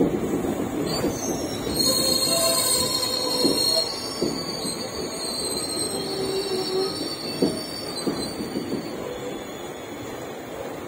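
Passenger train's steel wheels squealing against the rails over a steady rumble as it moves through the station. The high squeal is strongest from about one to four seconds in and then eases to fainter squeals.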